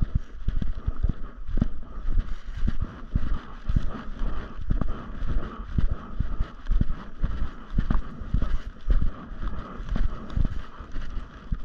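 Footsteps of a person walking a woodland trail, heard as irregular low thuds about one or two a second through a body-carried camera, over a steady faint hiss.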